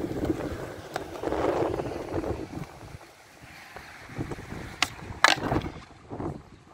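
Skateboard wheels rolling on smooth concrete, then two sharp clacks of the board about half a second apart.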